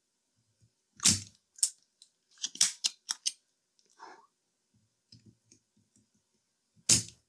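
Sharp clicks and light taps of small tools and wire leads handled while soldering a capacitor onto a radio chassis. There is one click about a second in, a quick run of clicks in the middle, and a louder click near the end.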